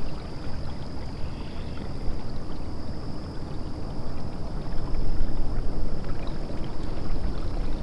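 Steady rushing noise of a kayak moving through the water, with wind buffeting the microphone.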